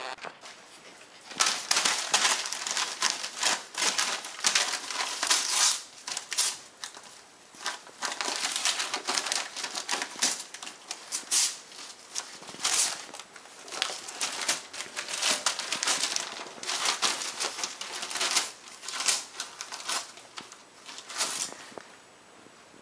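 Newspaper crinkling and tearing as a border collie puppy bites, shakes and tugs at it, in irregular crackly bursts with short pauses.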